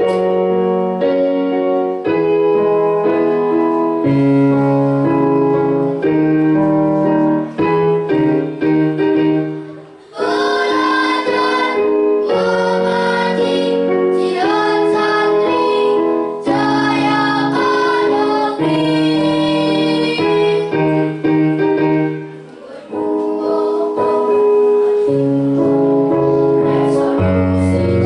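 Children's choir singing with keyboard accompaniment. The keyboard plays held chords alone at first, and the voices come in about ten seconds in.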